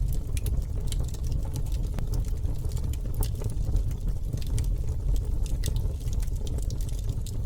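Campfire burning: irregular crackles and pops from the burning wood over a steady low rumble.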